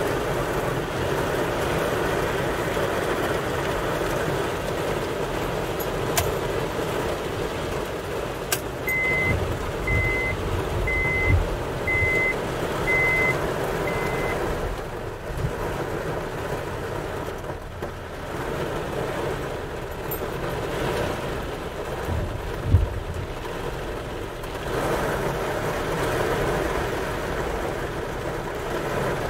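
Heavy thunderstorm rain and wind rushing against a car's windows and body, a steady noise heard from inside the car. About nine seconds in come six short, high electronic beeps, about one a second. A dull thump falls a little after the middle.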